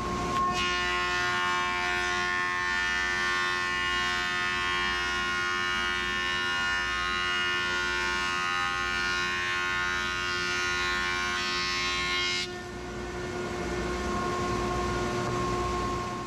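Thickness planer and its dust collector running with a steady multi-tone whine over a hiss as a walnut slab is planed. About twelve seconds in the high hiss drops away and the level dips, then it rises again and stops suddenly.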